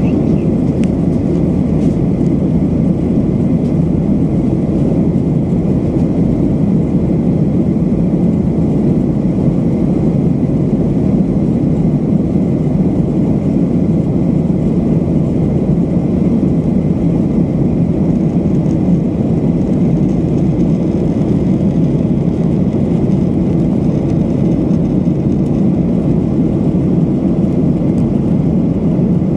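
Steady low rumble of a jet airliner's engines and airflow, heard inside the passenger cabin in level flight.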